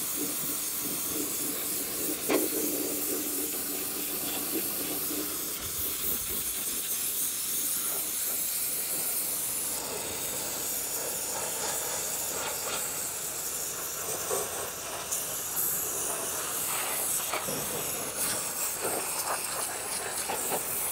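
Water jet from a Simpson 3000 PSI gas pressure washer spraying on a rusty steel truck frame, making a steady, loud hiss. This is plain water with no sand yet, on a first pass to blast off dirt and loose debris. A low, steady hum runs underneath for the first few seconds.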